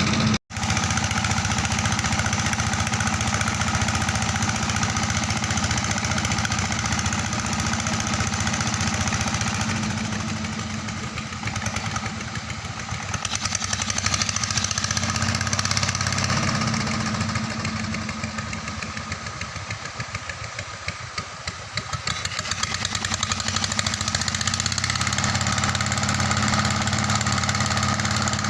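Engine of a river sand-suction pump running steadily. The sound cuts out for an instant about half a second in, and the level sags twice before coming back up.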